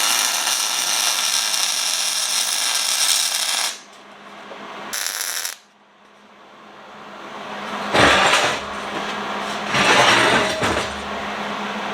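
Electric welding arc crackling steadily through a bead of about four seconds, then a short tack, as the frame is welded onto the anvil stand rack. Two more short, louder bursts follow about 8 and 10 seconds in.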